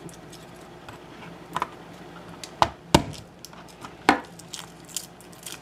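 Chef's knife knocking on a plastic cutting board as garlic cloves are smashed and peeled: about four sharp knocks, the loudest about three seconds in, with lighter taps near the end.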